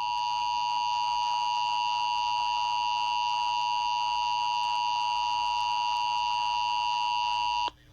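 Emergency Alert System two-tone attention signal (853 and 960 Hz together) held steady for nearly eight seconds, then cutting off abruptly near the end. It signals that an emergency alert, here a tornado warning, is about to be read.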